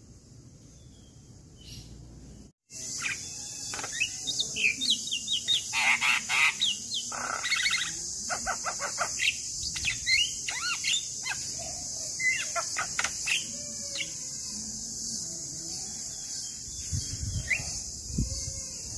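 Male Javan myna (jalak kebo) calling: a busy run of short chirps, quick sliding whistles and harsher squawky notes, starting about three seconds in after a brief dropout, over a steady high hiss.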